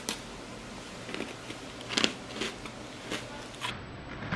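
A few short, crisp crunches and clicks, spaced irregularly: biting into and chewing a crunchy sandwich cookie.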